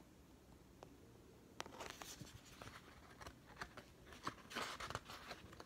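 Faint paper rustling and small crinkles as the pages of a paperback picture book are handled and turned, starting about a second and a half in.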